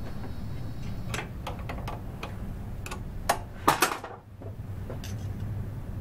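Hand wrench clicking and tapping on the reverse cable's jam nut and set screws as they are tightened on a go-kart's reverse box: a handful of scattered metal clicks, the loudest cluster a little over three and a half seconds in.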